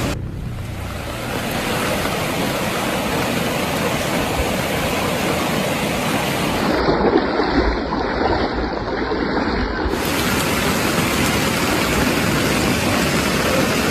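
Flash-flood water rushing and churning in a steady torrent. For about three seconds in the middle the sound turns duller.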